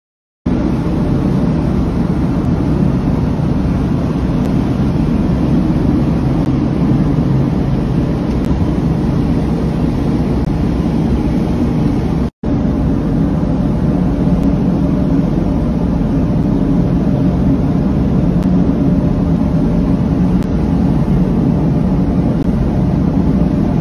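Fishing boat running under power: a loud, steady low rumble of engine and hull noise, broken once by a split-second dropout about halfway through.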